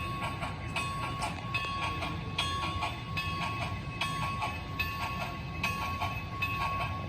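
HO-scale model of a C&O 2-6-6-2 steam locomotive running with a passenger train: a steady thin whine over a quick repeating beat and a low rumble.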